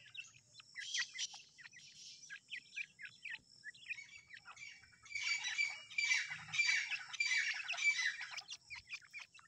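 Young partridge chicks peeping with many short, high chirps as they forage, rising to a louder, denser run of calls for about three seconds past the halfway point.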